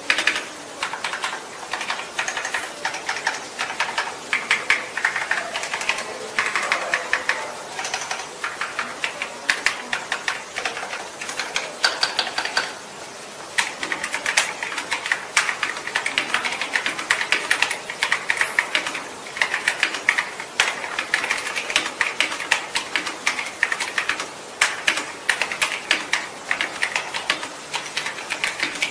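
Typing on an Epomaker TH96 mechanical keyboard: rapid, continuous keystroke clacks, with a brief pause about halfway through.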